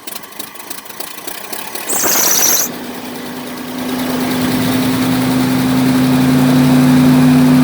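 RV's gasoline engine cranking, catching about two seconds in with a brief hiss, then settling into a steady idle that grows a little louder. It is running on freshly changed spark plugs with the ignition timing still being set.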